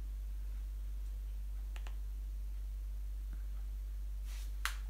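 Remote-control buttons being pressed: a faint double click about two seconds in and a sharper click near the end. A steady low hum runs underneath.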